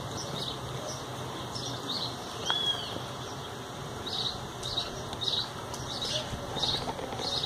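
Birds chirping: short high chirps repeating, coming several a second in the second half, with one arched whistled note about two and a half seconds in.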